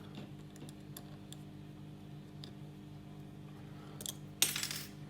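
Faint, scattered clicks and ticks of a hook pick working the pin stack of a Master Lock 410 lockout padlock under tension, with a brief, louder scratchy rasp about four and a half seconds in. A steady low hum runs underneath.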